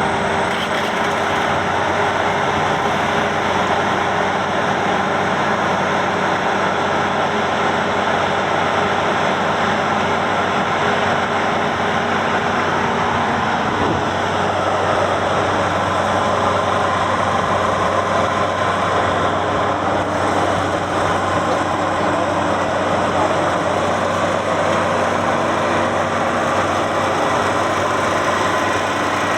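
Engine of a Maxxi Bimo 102 combine harvester running steadily, with a steady hum and whine, its tones shifting slightly about halfway through.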